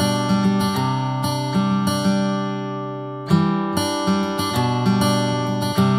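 Background music: an acoustic guitar strumming and picking ringing chords, with a fresh strum about three seconds in after the chord dies away.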